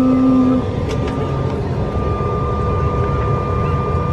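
Steady airliner cabin noise: a low jet-engine drone with a thin, steady whine.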